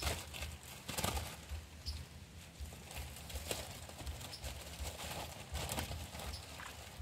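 Irregular hollow knocks and clicks of gear being handled in a small boat while a fish is played on a bamboo pole, over a steady low rumble. The loudest knocks come at the start and about a second in.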